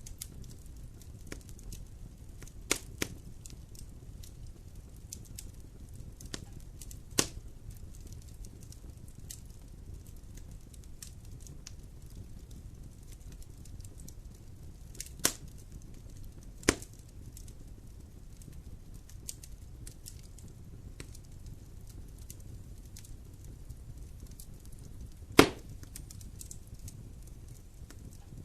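Wood fire burning in a fireplace: a steady low rumble under frequent small crackles, with a handful of sharper pops, the loudest near the end.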